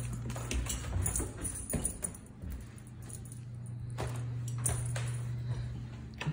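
An Australian Shepherd's claws click and tap on wooden floor and steps as she walks about, with the jingle of her collar tags, over a steady low hum.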